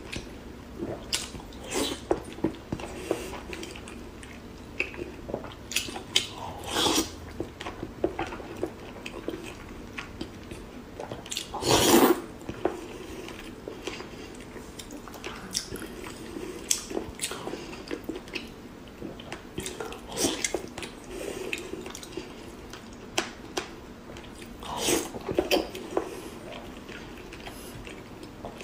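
Close-miked mukbang eating sounds: fatty braised pork belly being bitten and chewed, in short irregular mouth clicks and smacks. A louder burst comes about twelve seconds in.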